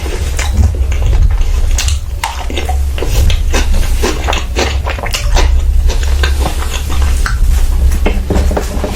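Irregular clinks and scrapes of cutlery and dishes during a meal, over a steady low hum.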